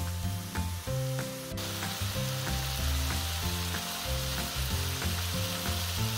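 Wild mushrooms, diced pancetta and chopped garlic sizzling in hot olive oil in a frying pan, the sizzle growing louder about one and a half seconds in. Background music plays underneath.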